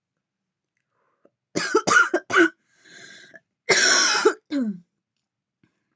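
A woman in a coughing fit from inhaling vape: a quick run of four harsh coughs, a short breath, then two more coughs, the last one trailing off lower in pitch.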